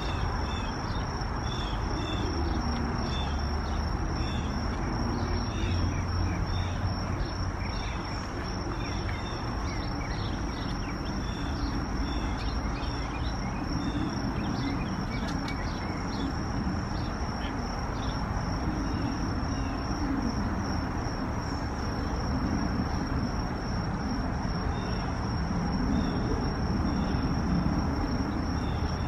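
Insects trilling on one steady high note, with scattered short chirps a little lower and a low background rumble.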